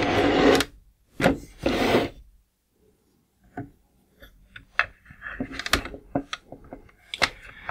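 Hard plastic parts of a G.I. Joe Destro's Dominator toy vehicle being handled: two rubbing, scraping noises as the toy is shifted, then a string of small clicks and taps as its side cannons are turned and pressed.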